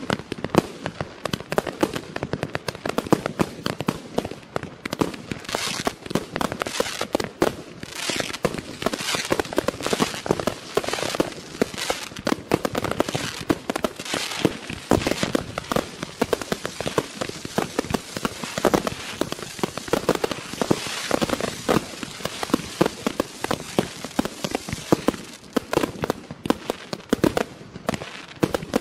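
Klasek C2003BP/C 'Best price' 200-shot, 30 mm fireworks cake firing shot after shot in quick, unbroken succession, with sharp launch reports and shell bursts several times a second.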